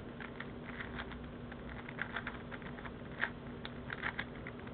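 A Rubik's Revenge 4x4x4 plastic puzzle cube being twisted quickly by hand to scramble it. Its layers turning give off irregular light clicks and clatters several times a second.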